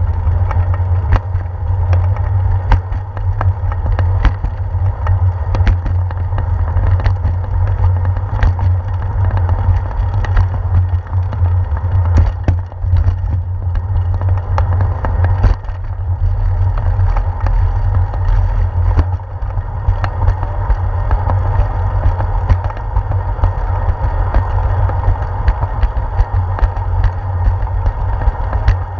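Wind buffeting and road rumble picked up by a handlebar-mounted GoPro on a moving bicycle, with frequent irregular sharp knocks and rattles as the bike rolls over bumps and pavement joints.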